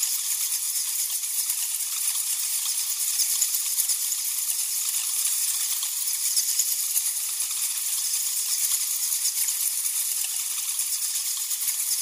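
Bats: a dense, even stream of rapid, high-pitched clicks and crackles, with nothing low in it.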